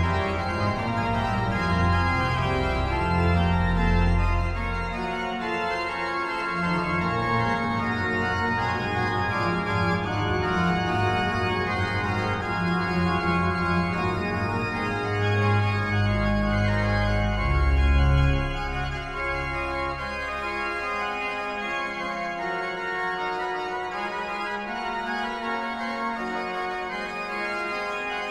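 Pipe organ playing slow sustained chords, with deep bass notes underneath that fall away about nineteen seconds in.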